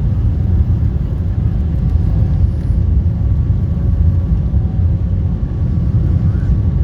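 Airbus A340 producing a steady, loud low rumble, with a few faint steady tones above it.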